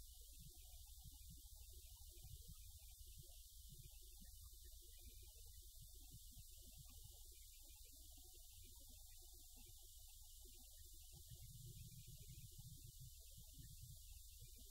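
Near silence: a faint steady low hum with hiss.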